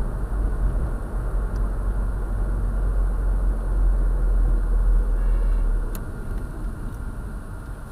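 Road noise from inside a moving car, picked up by a dashcam: a steady low rumble of tyres and engine at city speed, easing off in the last couple of seconds as the car slows.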